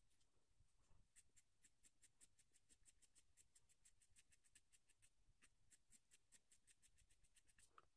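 Graphite pencil shading on drawing paper: faint, quick back-and-forth scratching strokes, about five or six a second, darkening a shadowed area.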